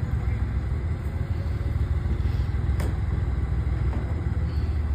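Small diesel switcher locomotive's engine running with a steady low rumble as it moves slowly onto the main line. A single sharp click about three seconds in.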